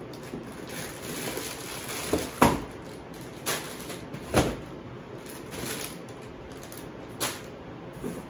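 Cardboard boxes of fireworks being shifted and set down inside a larger carton: several sharp knocks, the loudest about two and a half seconds in and another near four and a half seconds, with rustling and scraping of cardboard in between.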